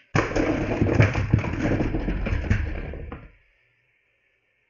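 Hot Wheels die-cast monster truck launched down an orange plastic track and crashing into plastic set pieces: a loud clatter with many sharp knocks that starts suddenly and stops after about three seconds.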